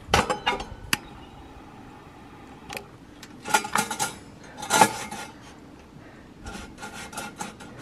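Metallic clicks and clinks from a Paseco kerosene heater's controls as it is being lit: the wick knob turned and the lever and small door at the ignition window worked by hand. The clicks come singly and in short clusters with a brief metallic ring.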